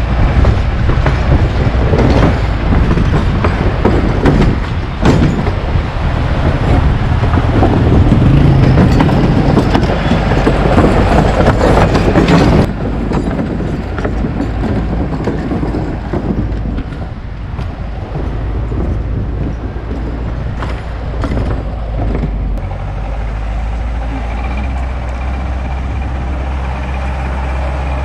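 4x4 jeep running on an off-road track, a loud rumbling ride noise that drops sharply about halfway through, leaving a quieter, steady engine hum.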